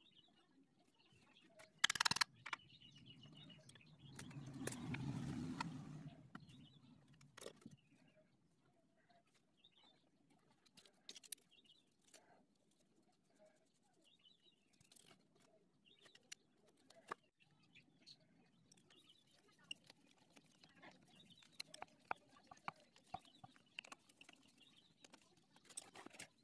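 Sparse light clicks and metallic clinks of small engine parts and tools being handled, the sharpest about two seconds in, with a muffled handling rustle between about four and six seconds. Faint bird chirps sound in the background.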